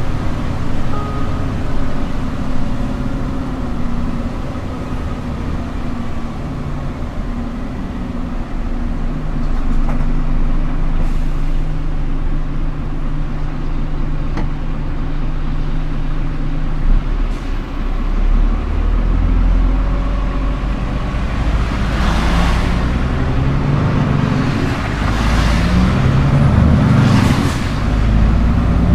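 Scania R410 truck's 13-litre six-cylinder diesel running under way, with a steady engine drone that shifts in pitch. Several short noisy bursts near the end.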